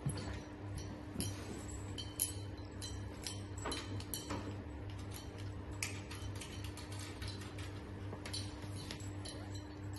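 Scattered light clicks and knocks of plastic hose connectors and handpieces being plugged into a hydrofacial machine, over a steady low hum. The sharpest click comes about two seconds in.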